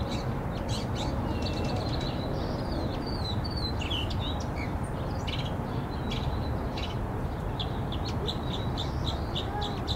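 Small birds chirping in short, quick notes with a few brief gliding calls, over a steady low rumble.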